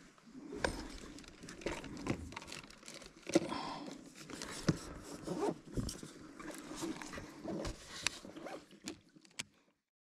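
Close handling noise of fishing tackle: rustling with irregular light clicks and knocks as a free-rig lure is tied on and a baitcasting rod and reel are handled. It stops abruptly near the end.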